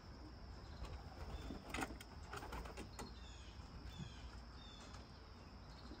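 Quiet ambience at a pigeon loft: a soft pigeon coo with a light click about two seconds in, then a few short high chirps from small birds, over a faint low rumble.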